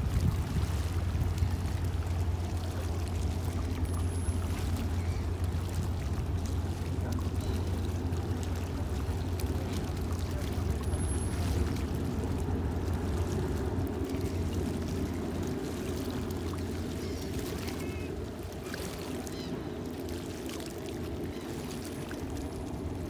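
Low steady rumble of a fast catamaran ferry's engines as it moves away, fading gradually in the last several seconds, over a rushing of water.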